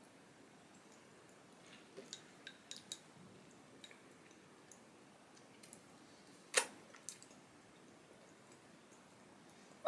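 Faint scattered clicks and light taps from a person handling and eating food. There is a small cluster of clicks about two to three seconds in and one sharper click about six and a half seconds in.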